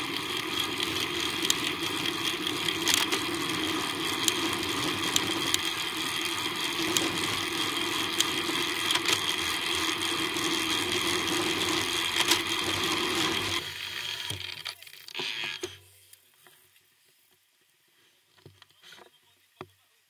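Steady wind and road noise on a bicycle-mounted camera's microphone while riding. It stops abruptly about fourteen seconds in, leaving near silence with a few faint clicks.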